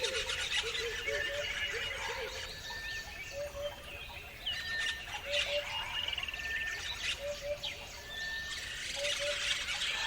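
A chorus of several birds singing and chirping over one another, with quick high chirps and trills. Through it a thin whistled note and a low two-note call each repeat every second or two.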